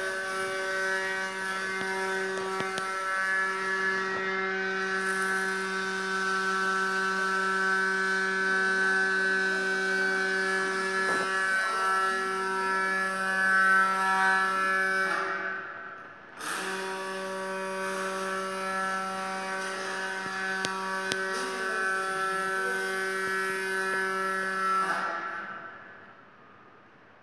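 A motor running with a steady, even-pitched hum; it stops for about a second partway through, starts again and cuts off near the end.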